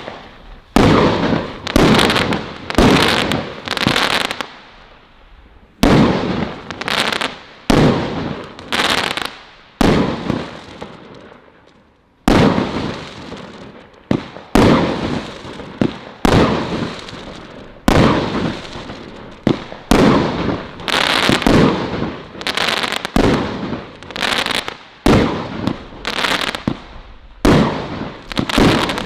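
Celtic Fireworks 'Colour Crackles' 25-shot firework cake firing: a rapid string of sharp bangs, each fading into a fizzing crackle, as the shots of strobe and crackle stars go off. The bangs come about one or two a second, with two short lulls about five and eleven seconds in.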